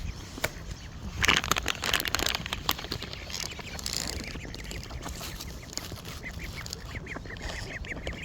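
A flock of ducks quacking and jostling, with a burst of sharp scuffling clicks about a second in. Near the end comes a run of short repeated calls, about three or four a second.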